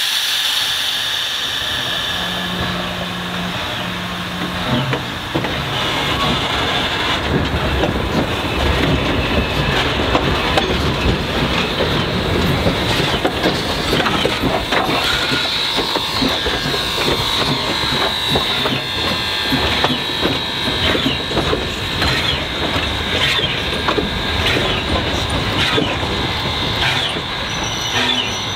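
Everett Railroad No. 11, a 2-6-0 steam locomotive, moving on the track. Its wheels make a dense clicking and clanking over the rails, with high wheel squeals on the rail from about halfway on.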